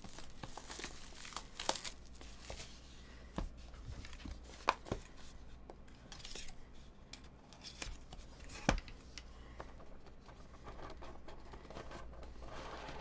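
Plastic shrink wrap being slit and torn off a sealed trading card box with a box cutter, crinkling, with several sharp clicks spaced through it as the cardboard box is handled.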